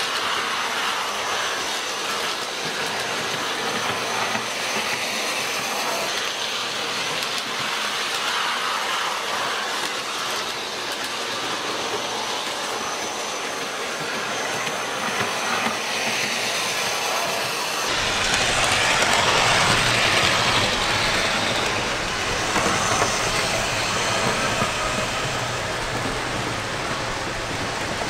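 O-scale model railroad vehicles running on the layout's track: a steady running sound of small motors and wheels on rail. About two-thirds of the way through it turns louder and deeper.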